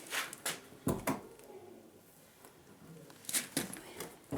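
A handful of sharp clicks and knocks in a small room: a pair about a second in and another pair near the end, with quiet room tone between.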